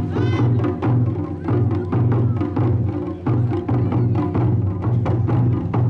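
Japanese taiko drums played at a quick, steady beat, with dense repeated strikes over a deep pulsing low end.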